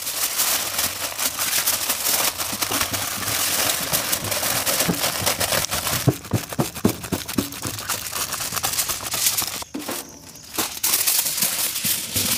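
Aluminium foil crinkling and crumpling as hands fold it and press it down into a wrap, with a few soft thumps of palms pressing it flat around the middle and a brief lull about ten seconds in.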